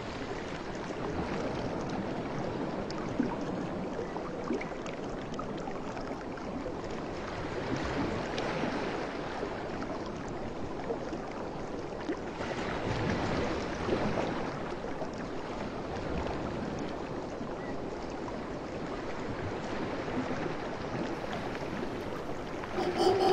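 Steady wash of ocean surf, swelling twice, about eight and thirteen seconds in.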